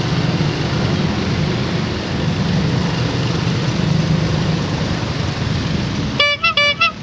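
Motorcycle engine running with road noise in slow traffic. Near the end a vehicle horn gives about four short toots in quick succession.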